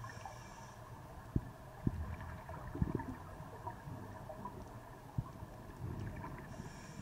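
Underwater sound through a camera housing: scuba divers' exhaled bubbles gurgling in low rumbling surges, with a few sharp knocks, a steady hum and brief hisses at the start and near the end.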